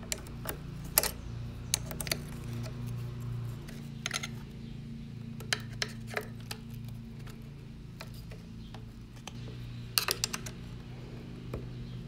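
Scattered small metallic clicks and taps from hands fitting the fuel line and cables onto a small outboard's carburetor, with a quick cluster about ten seconds in. A steady low hum runs underneath.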